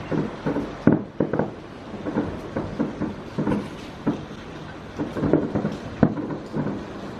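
Aerial fireworks bursting in quick, irregular succession: a continuous run of bangs, the sharpest about a second in and again about six seconds in.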